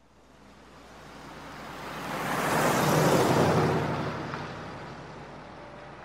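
A car passing by: its engine and tyre noise swells to a loud peak about three seconds in, then fades away.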